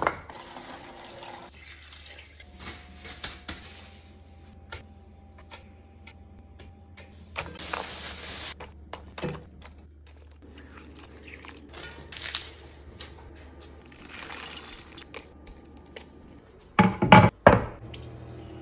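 Kitchen handling sounds: chicken and vegetable scraps tumbling into a stainless steel stockpot, with scattered clicks and light clatters over a low steady hum. A few loud thunks come near the end as the full pot is handled and set down.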